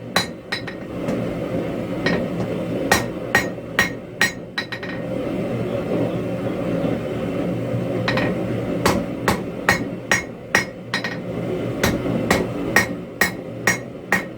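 Hammer blows on hot steel over an anvil while forging a tomahawk from railroad track anchor steel. The blows come in quick runs of about two or three a second, each ringing briefly, with a pause of a few seconds in the middle, over a steady low rumble.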